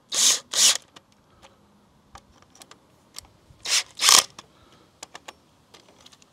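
Ratchet handle on a socket extension clicking in short quick runs as the clutch slave cylinder bolts are tightened a little at a time: two runs right at the start and two more about four seconds in, with faint ticks between.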